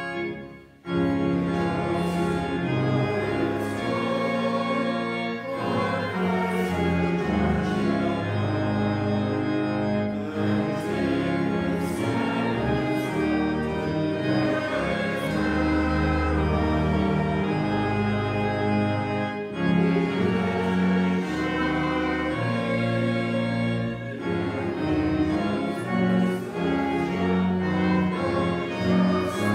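A hymn sung by a choir with organ accompaniment, starting about a second in after a brief drop in sound.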